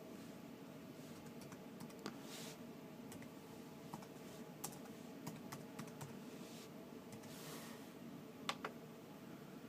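Faint, scattered key presses on a computer keyboard, a stroke or two at a time with pauses between, the loudest a quick pair near the end, over a steady low hum.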